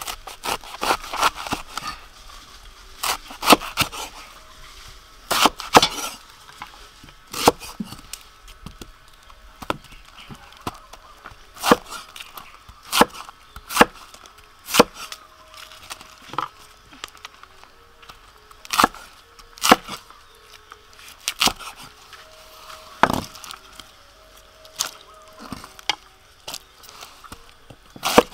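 Cleaver slicing a banana flower on a wooden chopping block: irregular sharp knocks of the blade cutting through and striking the wood, about one a second, sometimes in quick runs of two or three.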